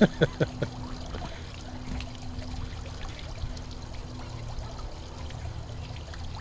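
Water bubbling and trickling from a submersible pond pump's outlet as a plastic jug is held in it; the owner thinks the pump is going out. A few short, sharp sounds come right at the start.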